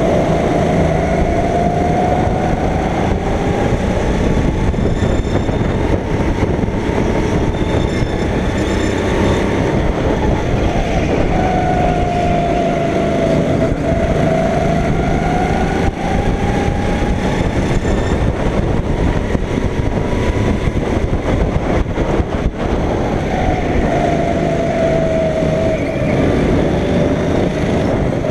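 Go-kart engine running hard on the track, its pitch rising and falling a few times as the kart accelerates and slows.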